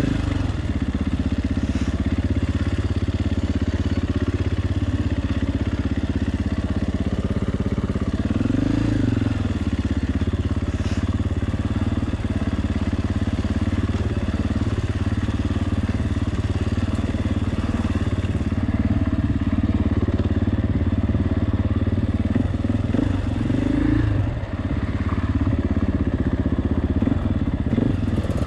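KTM 450 EXC enduro motorcycle's single-cylinder four-stroke engine running at low, fairly steady revs under way, with brief rises in revs about nine seconds in and again near the end.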